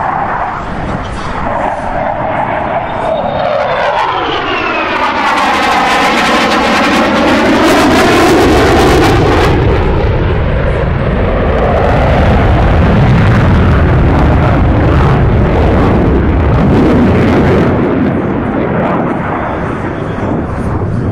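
Twin General Electric F414 turbofans of an F/A-18E Super Hornet at full power with afterburner, a loud jet roar. As the jet passes, a sweeping whoosh falls and rises in pitch, with a crackle at its loudest. It then settles into a deep rumble that eases off near the end.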